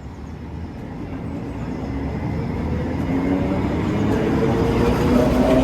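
Heritage tram running on street track, a low rumble growing steadily louder, with a faint motor hum coming in over the second half.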